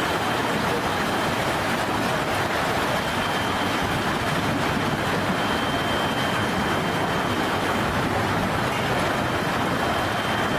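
Strong storm wind blowing steadily: a continuous, unbroken rushing noise.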